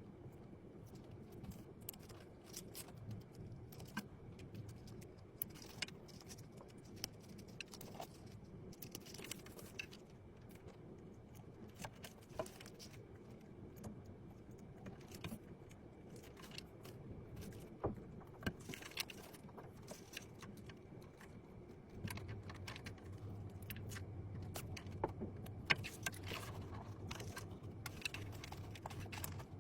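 Scattered light clicks and clinks of computer parts being handled and fitted together. A low steady hum joins about two-thirds of the way in.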